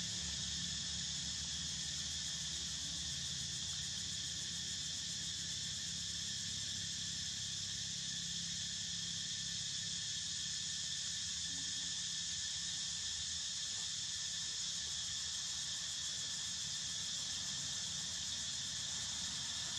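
Steady chorus of insects droning in several high pitches at once, unchanging throughout, over a low rumble.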